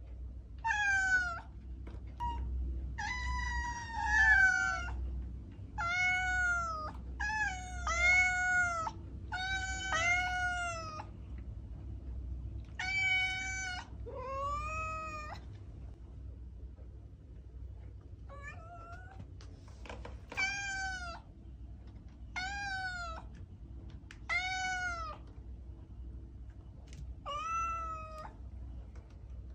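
Cat meowing over and over: a string of short, high meows, each rising and falling in pitch, coming quickly in the first half and with longer gaps later.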